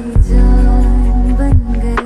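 Slowed-and-reverb Hindi film song playing: held notes over deep bass, with a heavy low drum hit just after the start and another about a second and a half in.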